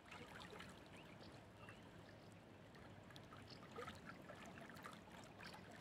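Faint lapping of small waves on open water, a soft wash with many little splashes and drips.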